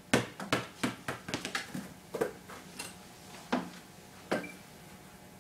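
A basketball inflated to 6 PSI bouncing on a concrete floor, a run of small bounces coming faster and faster as it settles, followed by a few scattered knocks.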